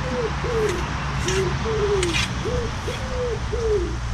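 A pigeon cooing over and over, a string of short low rise-and-fall calls about two a second. Light splashes of water come from the landing net as it is lifted from the pond.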